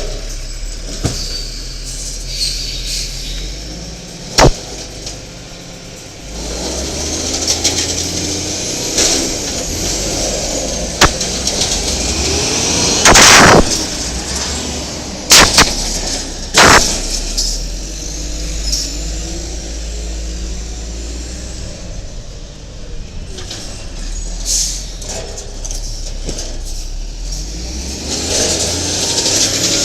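Garbage truck's Cummins L10G natural-gas engine running and revving up and down, with several sharp loud bangs and clatters between the revs.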